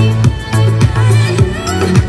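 Recorded music with a steady beat and a heavy bass line, played loud through a large multi-driver PA speaker cabinet.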